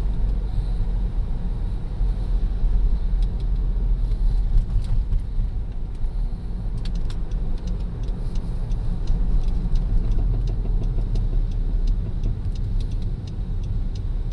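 Car moving slowly, heard from inside: a steady low rumble of engine and road, with faint light clicks coming through from about three seconds in.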